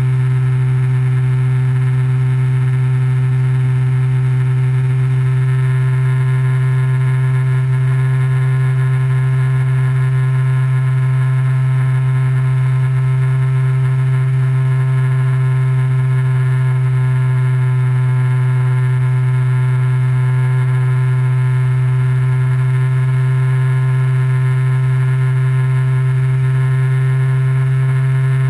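Light aircraft's engine and propeller running steadily at cruise: a constant low hum with steady higher tones above it, picked up by a camera mounted on the aircraft.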